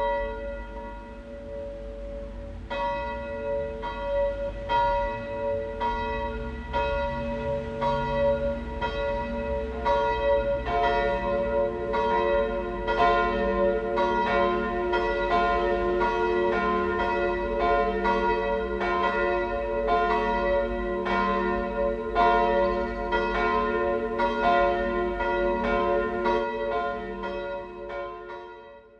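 Church bells ringing in repeated strikes, each note hanging on, with another bell joining about ten seconds in; the ringing dies away near the end.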